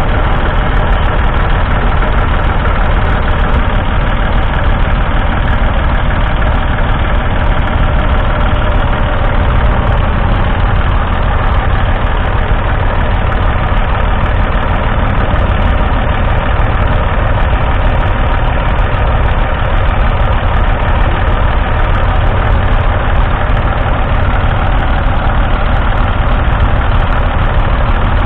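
1974 Massey Ferguson 148's 2.5-litre three-cylinder diesel engine idling steadily.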